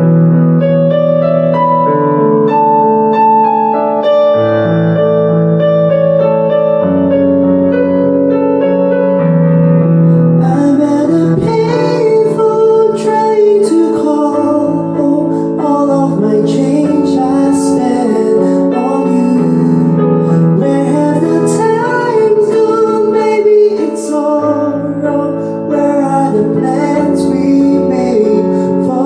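Slow piano playing sustained chords, joined about ten seconds in by a solo singer's voice singing a slow ballad melody over it.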